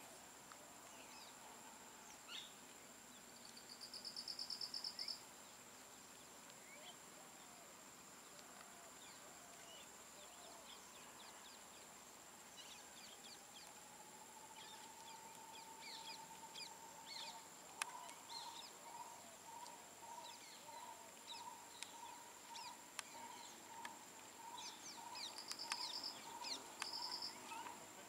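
Faint wildlife background of birds and insects: a steady high insect buzz, short bursts of scattered chirps, and two quick high trills. From about two-thirds through, a bird repeats a low whistled note about three times every two seconds.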